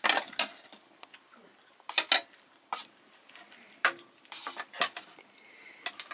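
Metal spoons clinking and scraping against steel plates during a meal, in scattered sharp clicks about once a second.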